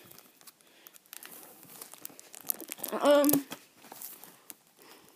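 DVD case being handled and turned over, with faint crinkling and small plastic clicks. About three seconds in comes one short vocal sound, a brief held note.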